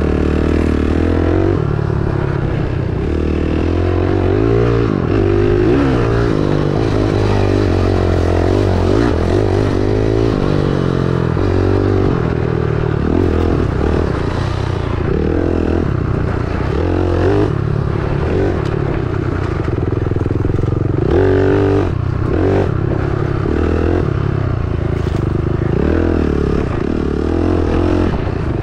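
Dirt bike engine running under load as the bike is ridden, the revs rising and falling again and again with throttle and gear changes.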